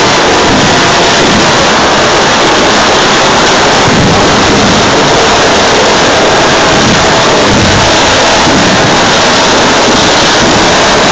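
Ground fireworks burning at close range: a continuous dense hiss and crackle, loud enough to overload the recording.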